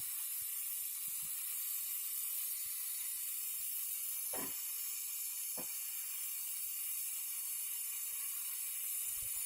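Steady hiss of gas flowing during refrigerator pipe work, with two faint short knocks near the middle.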